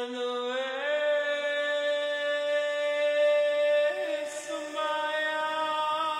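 Background music of long held notes, the chord shifting about a second in and again about four seconds in.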